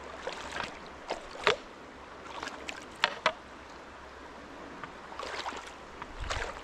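Irregular splashes of a person wading through a shallow, rocky river, roughly one every second, over the steady sound of the flowing water. A brief low thump comes near the end.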